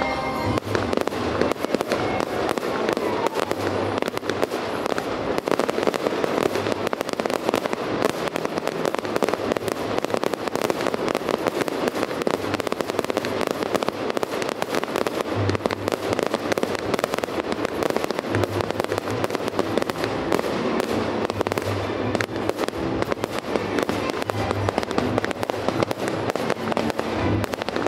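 Fireworks barrage: a dense, unbroken run of bangs and crackling from aerial shells, rockets and crackling stars.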